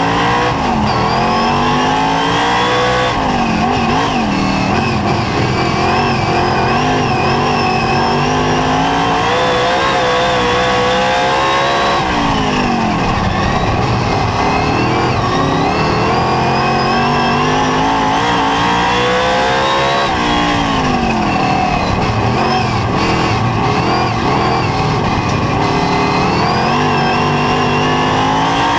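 Superstock speedway car's engine heard from inside the cockpit at racing speed, its revs climbing down each straight and dropping sharply as the driver lifts for the turns, about every eight seconds.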